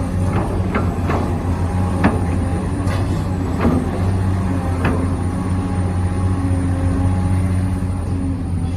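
Steady electric hum of a radio-controlled model construction machine's motors, with scattered clicks and knocks.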